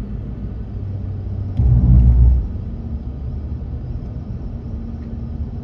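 Steady low road and engine rumble heard from inside a moving car, with a louder low rumble lasting under a second, about one and a half seconds in.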